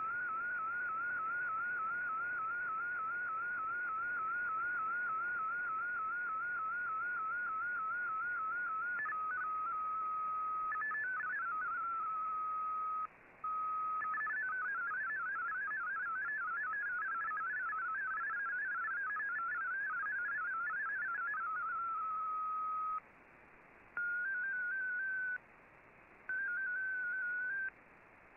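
MFSK digital-mode data tones from a shortwave broadcast, heard through the receiver over a hiss of static. A tone warbles evenly up and down several times a second. Around the changeover from MFSK32 to MFSK64 it holds steady with a brief pause, then jumps about faster and more irregularly, holds steady again and ends in two short bursts.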